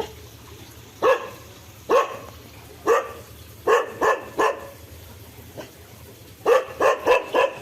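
A dog barking: single barks about a second apart, a quicker cluster of three, then a rapid run of four near the end.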